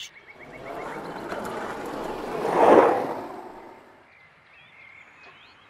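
Skateboard wheels rolling over paving stones, growing louder as the board passes close by about two and a half seconds in, then fading away.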